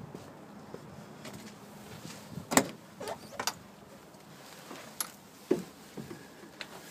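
A few short knocks and clunks of someone climbing into a DAF truck cab, the loudest about two and a half seconds in, with softer ones after it.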